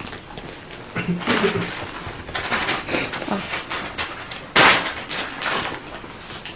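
Rustling and clatter of small items being handled and packed into a handbag, a run of short scrapes and clicks with one sharper, louder rustle about four and a half seconds in.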